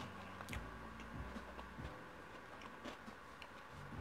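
Close-miked chewing: soft, scattered mouth clicks of a person eating, several in a few seconds.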